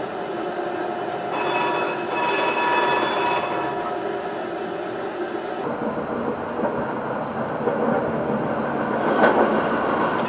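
Tram running along street track, its warning bell rung twice: a short ring about a second and a half in, then a longer one straight after. A sharp knock near the end is the loudest moment.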